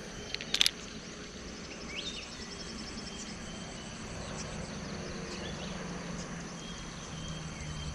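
Insects chirping steadily in a fast, even pulse, with a few short rising bird chirps; a couple of sharp clicks about half a second in.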